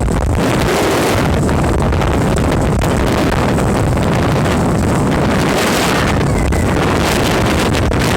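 Wind rushing over the microphone aboard a speedboat under way, loud and steady, over the boat's motor and the water.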